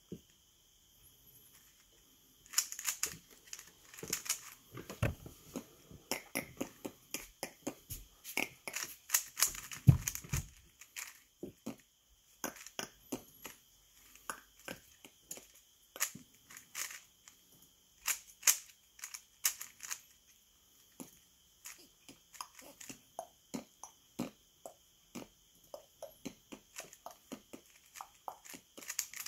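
Plastic 3x3 speed cube being turned fast by hand: rapid runs of clicks and clacks as its layers turn and snap into place during a solve. The clicking starts a couple of seconds in, comes thickest over the next several seconds with one louder knock about ten seconds in, then continues in sparser bursts.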